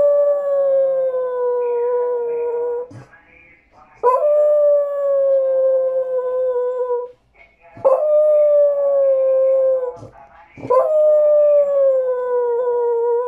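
Dog howling four times, each howl about three seconds long and sliding slightly down in pitch. It is crying to beg for a tamal.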